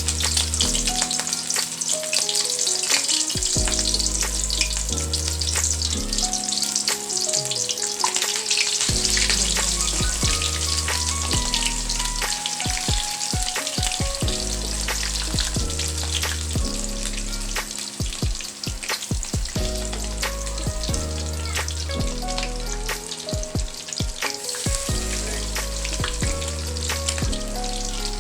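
Breaded, marinated chicken pieces deep-frying in hot oil: a steady sizzle dotted with crackles and pops. Background music with a regular bass line plays along with it.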